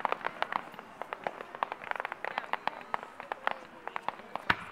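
Fireworks crackling: a rapid, irregular run of small sharp pops, with one louder bang about four and a half seconds in.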